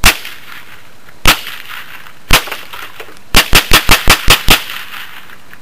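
Marlin semi-automatic .22 rifle firing ten shots: three single shots about a second apart, then a rapid string of seven at roughly five shots a second.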